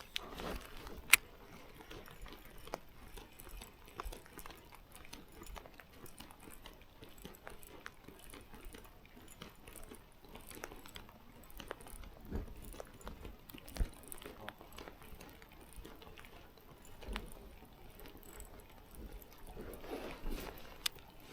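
Quiet scattered small clicks and knocks over a faint steady background noise, with one sharper click about a second in.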